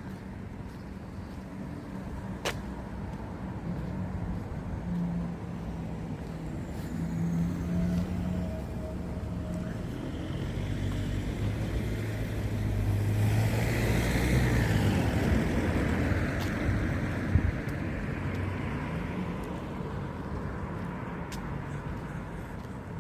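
A car driving past: low engine hum and tyre noise building to a peak about halfway through, then fading away.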